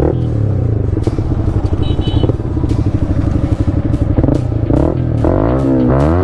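Motorcycle engine running on the move; toward the end the revs climb steeply, fall back, and climb again.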